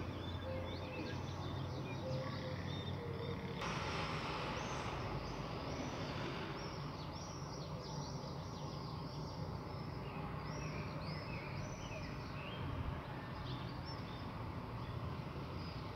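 Many small birds chirping in quick, short calls from the trees, over a steady low background hum. A broader hiss joins in about three and a half seconds in.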